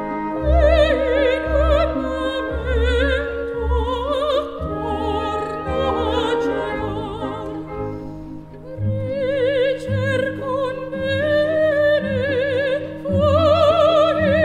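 Operatic singing with a wide vibrato over instrumental accompaniment; the music dips briefly about halfway through, then swells again.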